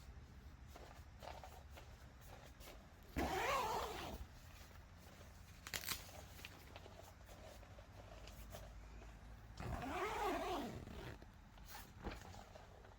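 Two drawn-out animal calls several seconds apart, each one rising and then falling in pitch.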